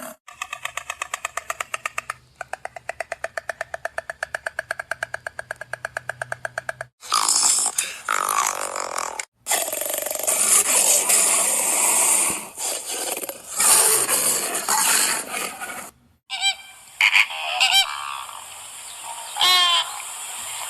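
A string of different wild animal calls, one clip after another: first two runs of rapid, evenly pulsed calls, then harsh, noisy calls, then short, wavering, whistled calls near the end.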